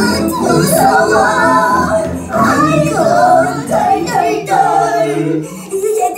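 A children's song: a sung vocal melody with held notes over musical accompaniment.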